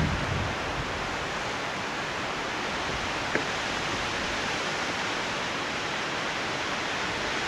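A steady, even hiss of outdoor background noise, with one faint click a little over three seconds in.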